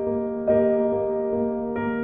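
Soft piano music: slow, sustained notes that fade, with a new chord struck about half a second in and another near the end.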